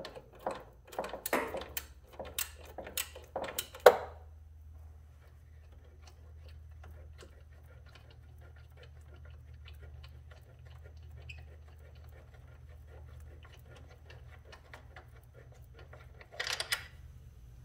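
Ratchet wrench with a 13 mm socket clicking as it backs out a motorcycle frame bolt. It gives a handful of sharp, loud clicks in the first four seconds, then a long run of faint, rapid ticking, with a short rustle near the end.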